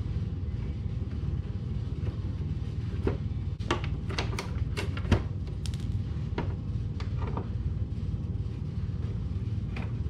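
Scattered light clicks and taps as small bolts are backed out of a motorcycle's plastic lower fairing and handled, most of them in the middle of the stretch. A steady low rumble runs underneath.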